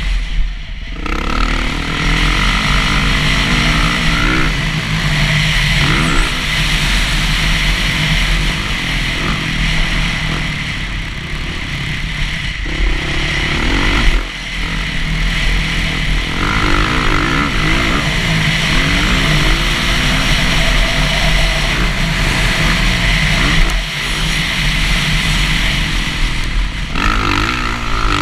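Dirt bike engine running hard on a motocross track, its pitch rising and falling with throttle and gear changes. The engine note drops off briefly a few times, near the start, about halfway and later on, before picking up again.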